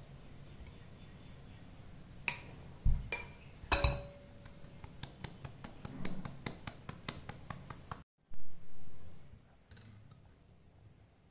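Stainless-steel mesh sieve knocked against a glass mixing bowl to sift flour into the batter: a few sharp clinks, then a quick, even run of light taps, about five a second, for some four seconds. The taps stop suddenly, and a few faint scrapes follow near the end.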